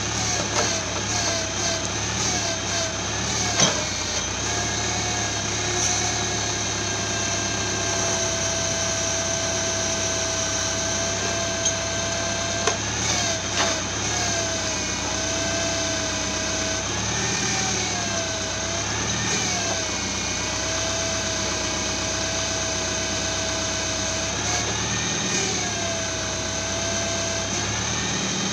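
Tractor engine running steadily while the forestry trailer's hydraulic crane is worked: a whine that holds, then rises and dips as the crane moves. A few sharp knocks come through, one about four seconds in and several around twelve to fourteen seconds.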